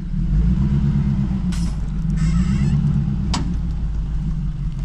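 Jeep Cherokee engine running steadily at low speed as it is driven slowly over rocky off-road ground, with a single sharp knock about three and a half seconds in.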